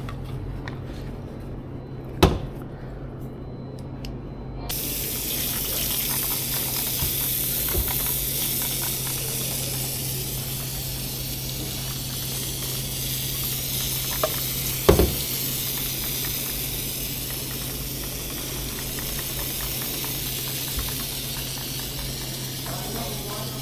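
A steady spraying hiss starts about five seconds in and runs on, over a low steady hum. Two sharp knocks come, one about two seconds in and one about fifteen seconds in.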